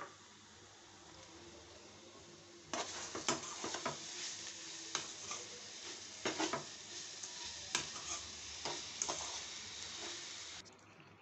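A metal spoon stirring sugar into grated beetroot frying in a pan, scraping and clinking against the pan over a steady sizzle. The stirring starts about two and a half seconds in and stops shortly before the end.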